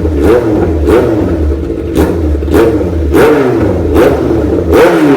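Kawasaki Z800's inline-four engine through a full SC-Project titanium exhaust system, loud, revved in quick repeated throttle blips that each rise and fall in pitch, settling back to idle between them.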